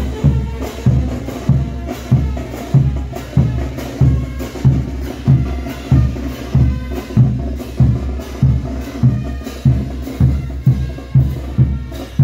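Festival dance-band music of the morenada kind, led by a bass drum beating steadily about twice a second, with sharper drum and clacking percussion strokes over it.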